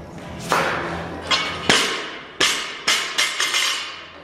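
A loaded steel barbell, a 45-lb bar with 45-, 10- and 5-lb plates on each side, rattles as it comes up from the squat and is driven overhead. It is then dropped onto rubber flooring: a loud crash a little under two seconds in, followed by several quicker bounces and clanks of the plates, each smaller than the last.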